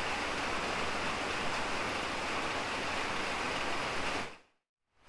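Heavy rain falling steadily onto grass and lake water, a dense even hiss. It fades out to silence a little over four seconds in.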